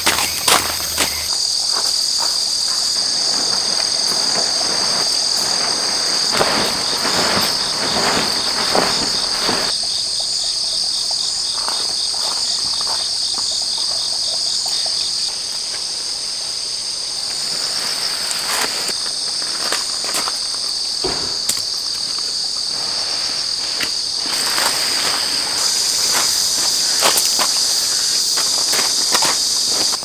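Steady, high-pitched chorus of insects chirping, with one voice pulsing rapidly in the first half. Now and then there is rustling of tarp fabric being handled and steps crunching on gravel.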